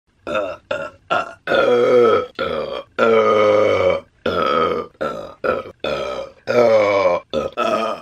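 A woman burping over and over, about a dozen loud burps one after another. Some are short and some are long, close to a second each.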